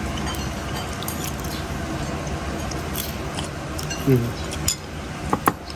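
Voices murmuring in the background, with a few sharp clinks of chopsticks and spoons against ceramic noodle bowls, two of them close together near the end.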